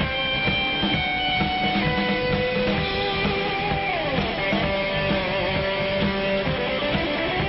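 Instrumental break of a rock song: a lead electric guitar holds long notes that slide in pitch, about four seconds in and again near the end, over strummed guitar and a steady beat.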